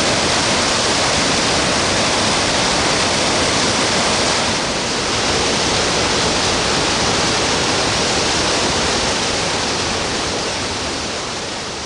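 Waterfall pouring, a steady loud rush of falling water, fading out near the end.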